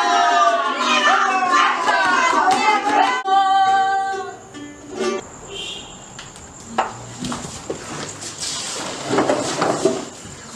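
Performers' voices singing together, pitches sliding up and down, ending a little over three seconds in with one held note; then much quieter, with scattered knocks and faint voices.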